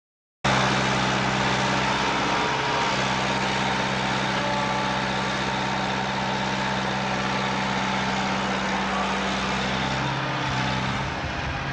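Heavy diesel engine of an Atlas wheeled excavator running steadily with a mechanical din, cutting in abruptly about half a second in.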